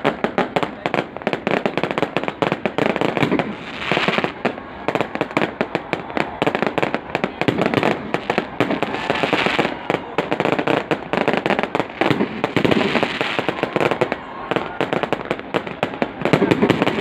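Aerial fireworks bursting in rapid succession: a dense, unbroken run of bangs and crackles.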